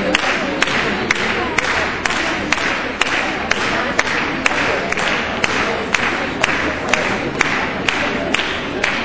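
Crowd clapping in time, a little over two claps a second, over music and hall crowd noise.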